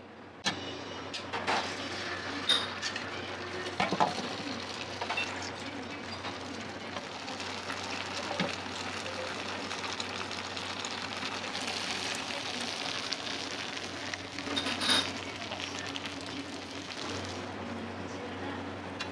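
Beaten egg sizzling in a hot oiled rectangular tamagoyaki pan over a gas flame, the hiss starting suddenly about half a second in and then holding steady. A few sharp knocks of cooking chopsticks against the pan come near the start and again late on.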